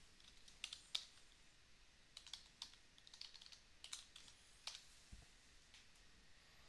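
Faint typing on a computer keyboard: about a dozen irregularly spaced key clicks over some four seconds.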